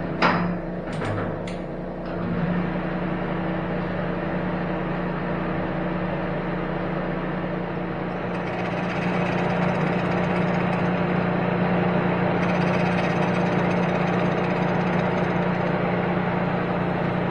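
Giddings & Lewis horizontal boring mill running, its face mill taking a light finishing cut across a cast-iron exhaust manifold's flange face. A steady machine hum with a few sharp clicks near the start; the cutting gets louder from about halfway on.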